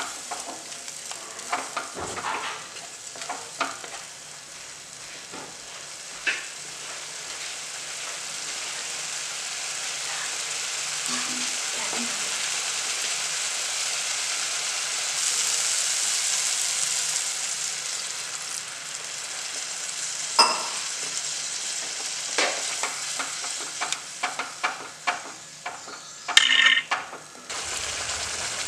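Thick masala paste sizzling in a kadai on the stove. A spatula scrapes and taps against the pan in the first few seconds, and again in a cluster of clicks near the end. The sizzle swells louder through the middle.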